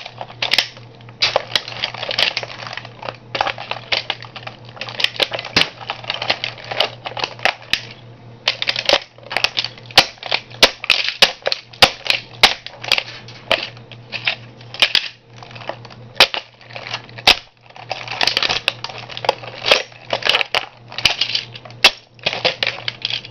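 A toy car cracking and crunching as a shoe stomps and grinds on it: a dense run of sharp snaps and crackles in clusters, over a steady low hum.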